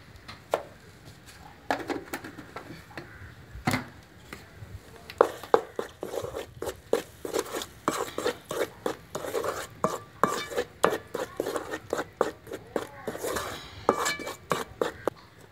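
Wooden spoon stirring thick ground tamarind chutney in a metal bowl, knocking and scraping against the metal. There are a few scattered knocks at first, then quick, repeated strokes from about five seconds in.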